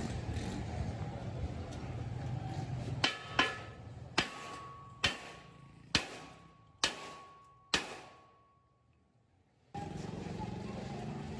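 Seven sharp metallic strikes, a little under a second apart, each ringing out with a clear tone, over a steady workshop background; the sound cuts out abruptly for over a second near the end.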